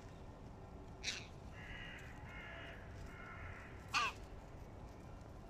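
Hooded crows cawing: two short, loud caws about three seconds apart, the second one dropping in pitch.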